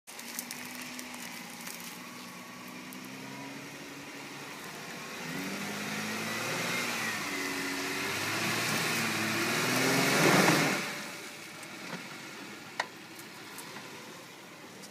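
Stock 2012 Jeep Wrangler JK's 3.6-litre V6 engine revving up and down as it climbs a sandy hill. It is loudest about ten seconds in, with a rush of noise, then drops back. A single sharp click comes near the end.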